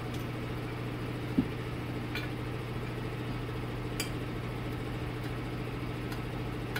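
Steady low hum of shop machinery. Over it come a few light clicks and one sharper knock about a second and a half in, from the aluminium 4L60E transmission valve body being handled and laid flat on the workbench.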